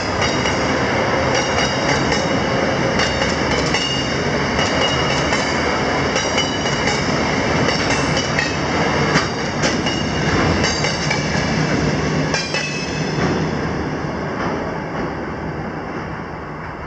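Ballast hopper wagons of a freight train rolling past: wheels clicking over the rail joints with high steady wheel squeal. The sound fades over the last few seconds as the end of the train moves away.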